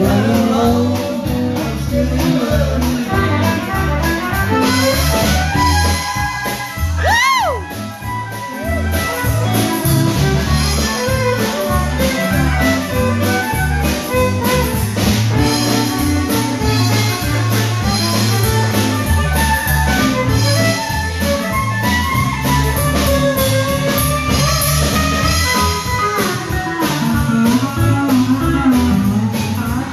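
Live country band playing with fiddle, electric guitar, bass guitar, drums and pedal steel guitar, over a steady dance beat.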